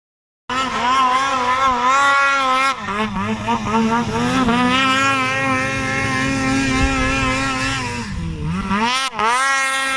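Snowmobile engine running hard at high revs, starting about half a second in; its pitch dips briefly around three seconds in and twice near the end as the throttle is eased and opened again.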